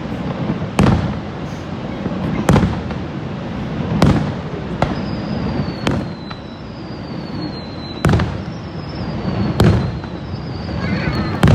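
Aerial fireworks shells bursting, a sharp bang every one and a half to two seconds, seven in all, over a steady low rumble. In the second half a thin high whistle falls in pitch four times.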